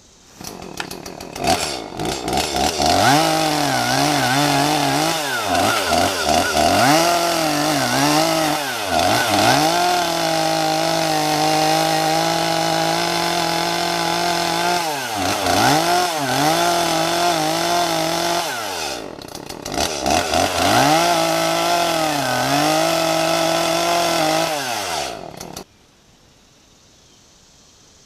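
Gas chainsaw running at high revs and cutting into a tree, its engine pitch dipping and recovering again and again as it bogs under load in the wood. It stops abruptly near the end.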